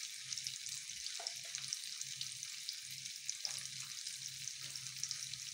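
Chopped garlic sizzling in melted butter in a pan: a steady frying hiss flecked with small crackles, over a faint low hum.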